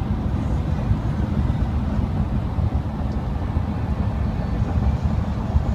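Steady low rumble of road and engine noise inside a moving van.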